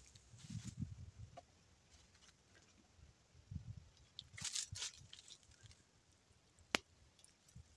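Footsteps in rubber boots crunching on dry leaf litter, faint and intermittent, with one sharp click about two-thirds of the way through.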